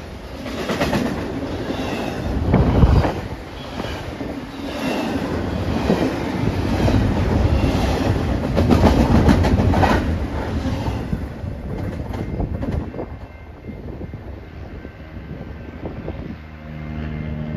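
BNSF double-stack intermodal container train running past, its wheels clattering with sharp clacks. The noise fades away after the last well cars pass, about two-thirds of the way through. Near the end a steady low hum starts.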